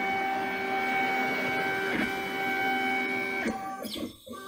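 Stepper motors of a DIY aluminium-extrusion CNC machine driving the gantry along an axis: a steady whine made of several fixed tones. It breaks off about three and a half seconds in as the move ends, then resumes more quietly near the end.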